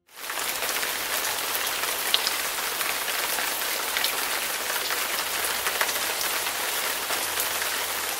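Rain falling steadily: a dense, even hiss with scattered louder drop ticks. It starts suddenly and begins to fade near the end.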